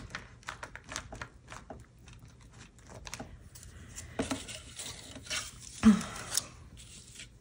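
Small clicks and taps as a clear acrylic stamp and craft tools are handled on a desk, then paper rustling as stamped paper strips are slid across a cutting mat, with a soft knock about six seconds in.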